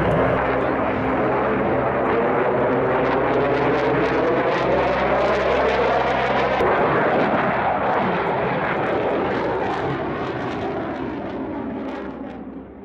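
Jet engine noise from a twin-engine Sukhoi fighter jet flying overhead: a loud, steady rush with a sweeping, shifting tone as the aircraft passes. It fades away over the last few seconds.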